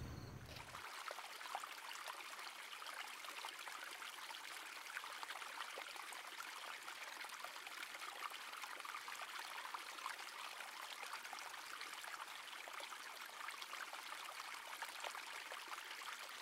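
Shallow creek running over rocks: a faint, steady rush and trickle of water.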